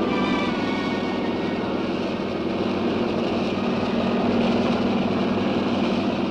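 Helicopter engine and rotor running, heard as a steady, loud drone. The end of a piece of music fades out in the first half second.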